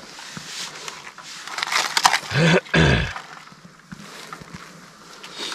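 A man's brief wordless vocal sound in two quick parts, a little past two seconds in.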